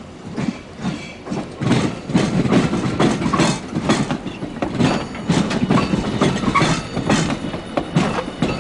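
Hiroshima Electric Railway streetcar rolling close by, its wheels clattering over rail joints and points in a rapid, irregular run of clacks that grows louder about a second and a half in.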